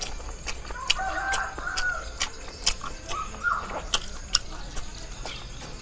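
A rooster crowing in the background: one drawn-out crow about a second in and a shorter call past the middle. Over it come close, sharp wet clicks of chewing and tearing sticky caramelized pork skin.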